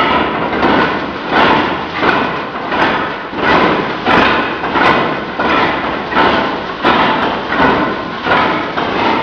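Wooden sticks (bastões) struck in a steady beat about every 0.7 seconds, with rattles (chocalhos) shaking between the strikes.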